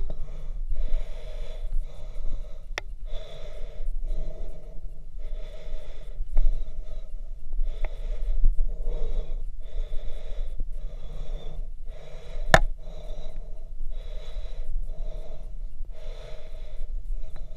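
A hiker breathing hard in a steady rhythm, about one breath a second, from the effort of climbing a steep rocky trail. A sharp knock about twelve seconds in, and a lighter one near three seconds.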